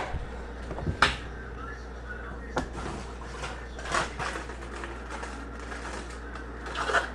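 Handling noise: a few scattered light knocks and clicks, with short rustles, as a paper plate and packaging are handled, over a steady low hum.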